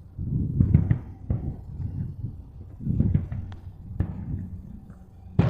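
Fireworks shells bursting: several deep, rumbling booms, a sharp crack about four seconds in, and a loud burst right at the end.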